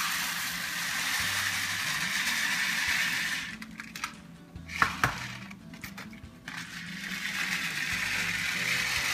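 Dry black rice pouring from a bag into a measuring cup: a steady, grainy hiss of grains. It runs for about three seconds, pauses with a sharp tap near the middle, and starts again about two seconds before the end.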